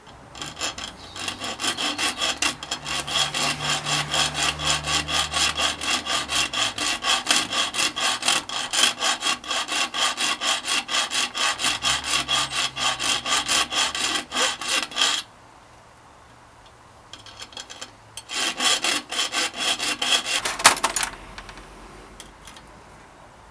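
Hacksaw cutting through the protruding end of a metal bicycle mudguard stay, trimming it so the end cap will fit. Quick, even strokes, about three or four a second, for some fifteen seconds; after a short pause the sawing picks up again for a few seconds and ends with a sharp click.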